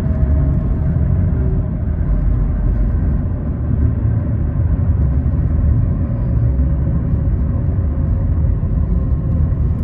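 Loud, steady low rumble of road traffic, with a faint steady whine running through it.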